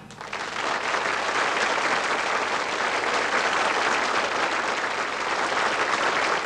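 Studio audience applauding steadily, starting as the song's music stops.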